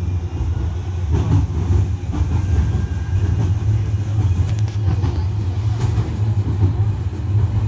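Manchester Metrolink M5000 tram running along the track, heard from inside the passenger cabin: a steady low rumble, with a few faint clicks midway.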